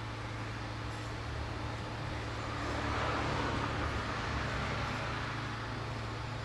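A road vehicle passing by, its tyre and engine noise swelling to a peak mid-way and fading again, over a steady low hum.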